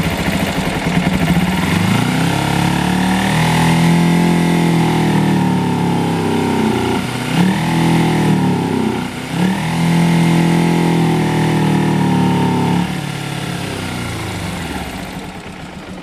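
2009 Kawasaki Ninja EX250's parallel-twin engine running just after start-up. It idles, then is revved and held at raised rpm for several seconds, with two quick throttle blips in the middle. Near the end it drops back toward idle.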